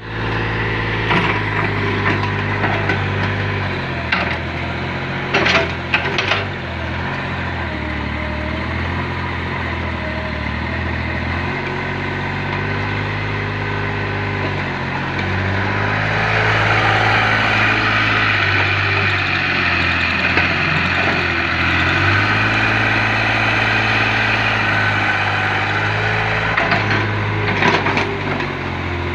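An engine running continuously, its pitch stepping up and down, with a few sharp knocks about four to six seconds in and again near the end.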